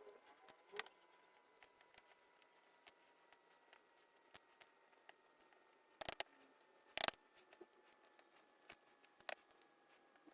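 Faint small clicks and taps of metal lock parts and tools being handled during disassembly of an MTL800 lock cylinder, with a few sharper clicks about a second in and around six and seven seconds.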